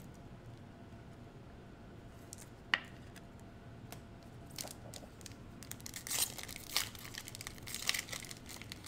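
Foil trading-card pack wrapper being torn open and crinkled by hand, in short sharp bursts that start about halfway in and grow busier. A single sharp click comes earlier.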